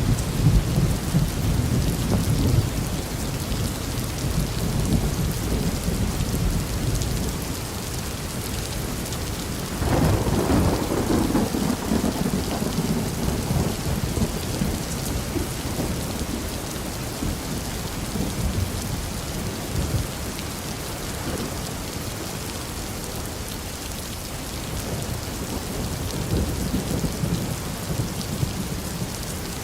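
Steady rain with thunder: a low rumble fading over the first few seconds, then a new thunderclap about ten seconds in that rumbles away over several seconds.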